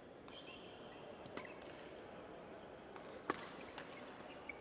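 Badminton rally in a sports hall: a few sharp racket strikes on the shuttlecock, the loudest about three seconds in, over faint hall background noise.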